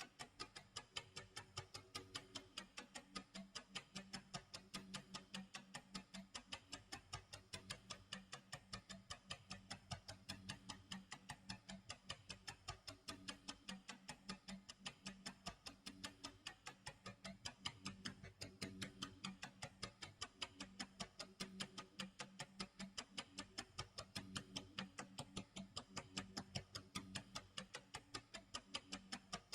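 Faint tick-tock clock sound effect, an even run of ticks that keeps on steadily, with a soft low tone underneath that shifts pitch every second or two.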